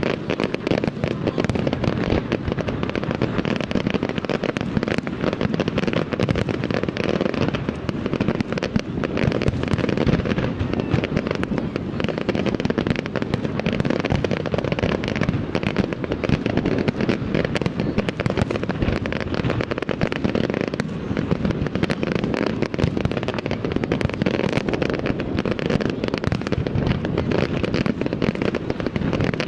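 Fireworks display: aerial shells and mortars going off in a dense, continuous barrage of bangs and crackling, with no pause.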